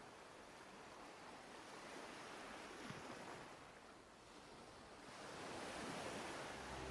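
Gentle ocean waves washing on a shore, a soft hiss that swells and ebbs, faint throughout. Soft, sustained low music notes enter near the end.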